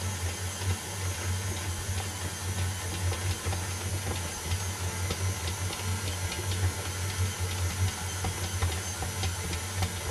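KitchenAid tilt-head stand mixer running, its flat beater turning flour and water into pizza dough in the stainless steel bowl: a steady motor hum with many light ticks throughout.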